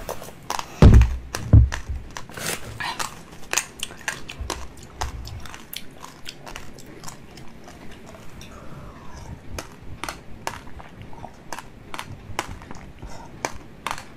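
Close-miked wet slurping and sucking of seeded yellow jelly through a narrow clear tube, full of quick wet clicks and pops. There are two loud low thumps about a second in.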